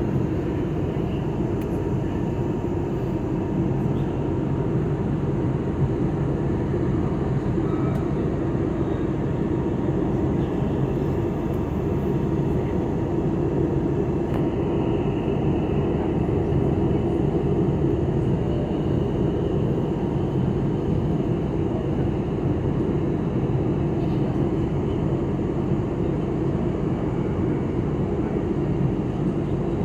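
Steady cabin noise of an airliner in its climb-out: the drone of the jet engines and rushing airflow, heavy and low, with a faint steady whine above it.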